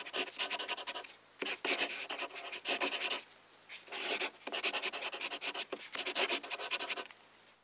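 Scratchy writing sound effect: a run of rubbing strokes, as of a pen scratching across a surface, each under a second long with short pauses between them.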